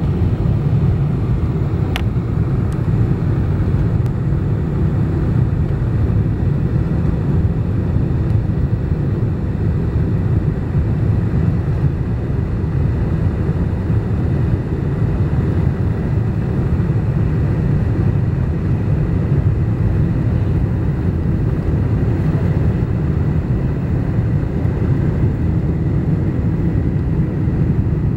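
Steady cabin noise inside a twin-engine Boeing 777-200 airliner descending on approach: a low, even rumble of engines and airflow. A single brief click sounds about two seconds in.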